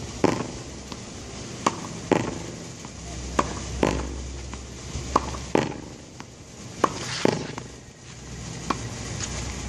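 Tennis ball hit with a racket against a practice wall: sharp knocks of racket strikes and the ball rebounding, mostly in pairs about half a second apart, every second and a half or so.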